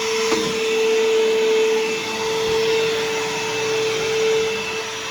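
Bissell CleanView Helix bagless upright vacuum running, a steady whine over the motor's hiss. The belt is making a noise that is taken for a belt that might be a little loose.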